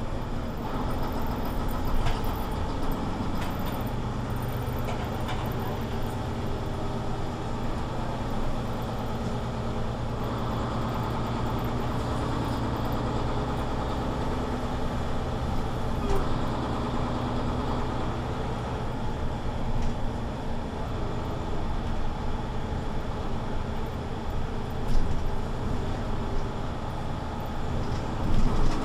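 Mercedes-Benz Citaro C2 city bus heard from inside the passenger cabin: its engine runs with a steady drone that shifts a little in pitch now and then. A few brief knocks and rattles come through over it.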